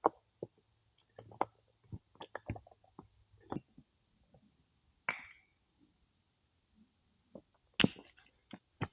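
Scattered sharp knocks and clicks of stones and hand tools at work in a foundation footing, with a short scrape about five seconds in and a cluster of gritty crunches near the end.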